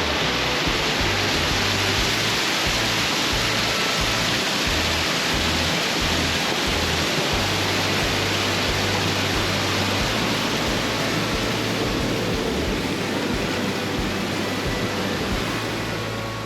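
Fast-flowing creek swollen with spring snowmelt, rushing water making a loud, steady hiss.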